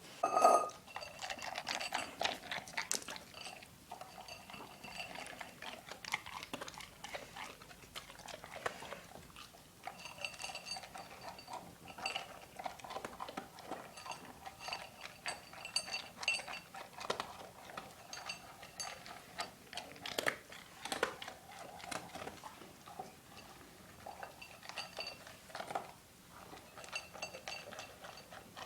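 A dog eating from a bowl: irregular chewing and crunching, with repeated clinks against the bowl that leave it briefly ringing. A louder knock on the bowl comes about half a second in.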